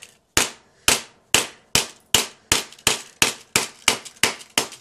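Steel claw hammer striking a DVD lying on concrete: about a dozen quick, sharp blows, two to three a second and speeding up slightly, as the disc cracks apart.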